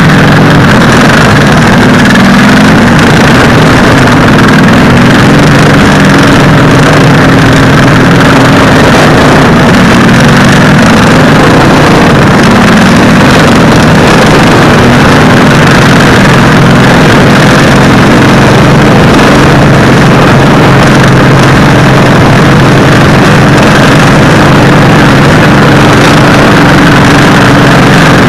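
Racing lawn mower engine running hard without a break, loud enough to overload the helmet-camera microphone. Its pitch wavers a little up and down through the laps.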